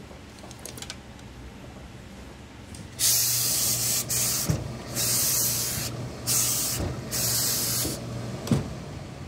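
Steam iron letting out four bursts of hissing steam, each about a second long or a little less, starting about three seconds in, with a low steady hum under the bursts and two dull thumps as the iron presses down. This is the steam-pressing of a suit jacket's altered hem.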